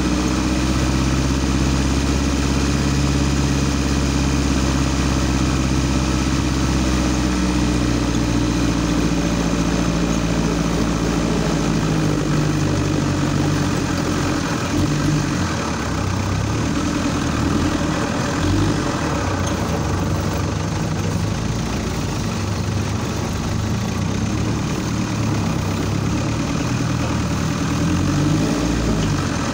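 Off-road vehicle's engine running at low speed on a dirt forest trail, heard from inside the cab. The engine note holds steady for the first dozen seconds, then rises and falls repeatedly with the throttle.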